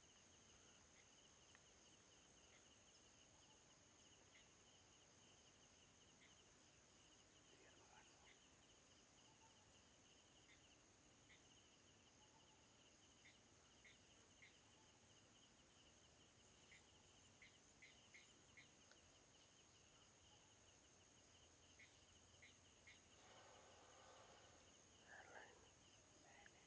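Near silence: faint forest ambience of steady high-pitched insect drone, with scattered short bird chirps and a faint rustle near the end.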